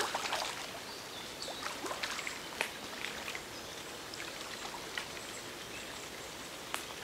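Small hooked fish splashing at the surface of a pond as it is played in toward a landing net, with short sharp splashes and trickling water, mostly in the first three seconds and once more near the end.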